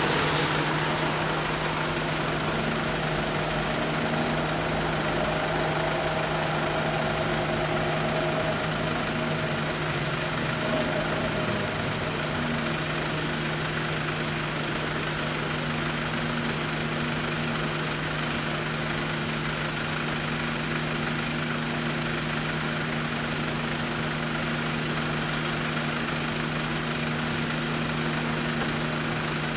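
Motor vehicle engines idling, a steady low hum that holds level throughout.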